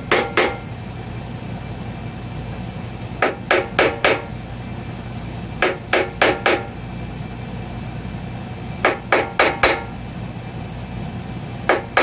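Hammer tapping a metal punch on steel in quick groups of four strikes, a group about every three seconds, each strike ringing briefly. The taps are punch marks being made on the hydraulic bead breaker's arms so they can be put back the same way.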